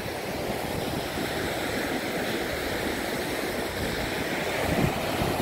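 Black Sea surf breaking on a sandy beach: a steady wash of waves, with a gust of wind rumbling on the microphone near the end.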